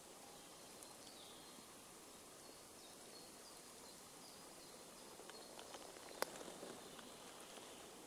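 Quiet forest ambience: a faint steady hiss with a few distant bird chirps. A sharp click comes a little after six seconds, amid some soft rustling.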